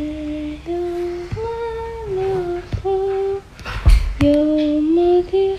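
A person humming a slow tune in steady held notes that step up and down. There is a single bump about four seconds in.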